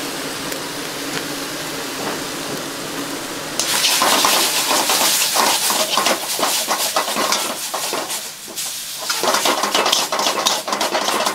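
Thin-sliced beef sizzling in a hot wok over a gas burner, a steady hiss. About three and a half seconds in, metal tongs start tossing the meat, clattering and scraping against the wok while the sizzling gets louder, easing off briefly past the middle and then picking up again.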